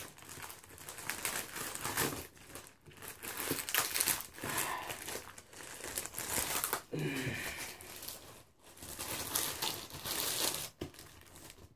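Clear plastic wrapping crinkling and rustling in irregular stretches as it is handled and pulled off a framed plaque.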